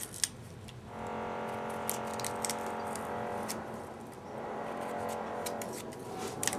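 Kitchen knife peeling the fibrous stem of a small purple artichoke: scattered sharp clicks and snaps of the blade cutting through the stem, over a steady background hum.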